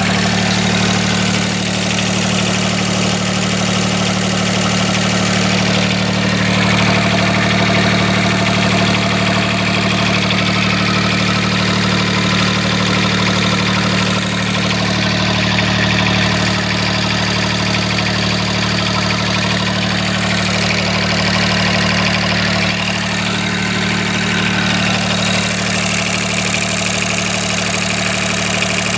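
Small marine diesel engine idling steadily.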